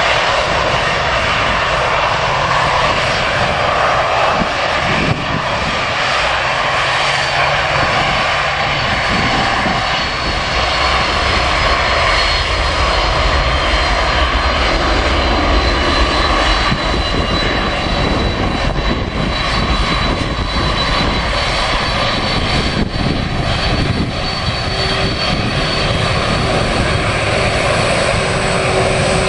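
Boeing 767 jet engines running as the airliner moves past close by on the ground: a steady, loud jet noise with thin high whining tones from the engines.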